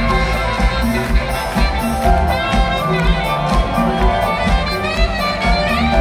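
A symphony orchestra playing live pop music, with brass prominent over a steady drum beat.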